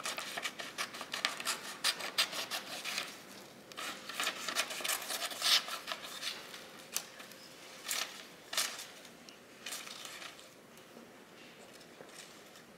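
Razor blade cutting through a sheet of painted collage paper: crisp, irregular scratching and crackling strokes in bursts, with the paper rustling in the hands, dying away over the last few seconds.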